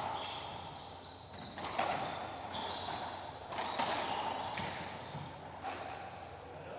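Racquetball rally: the hollow rubber ball being struck by racquets and smacking off the court walls, a sharp echoing pop every second or two, with short high squeaks of court shoes on the hardwood floor between hits.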